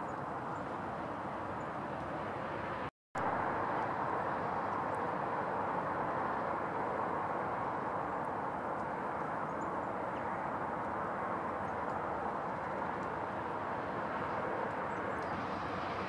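Steady distant vehicle noise, an even rumbling hiss with no clear bird calls in it; the sound cuts out completely for a moment about three seconds in.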